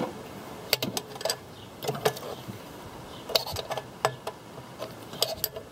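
Irregular sharp metallic clicks and clinks of a wrench and hand working a small nut on the throttle-cable bracket of a carburetor linkage, snugging it down.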